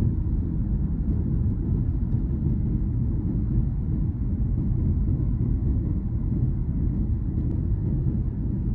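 Steady low rumble of a Boeing 737 MAX 8 airliner heard as cabin noise: an even drone of engines and airflow that holds the same level throughout.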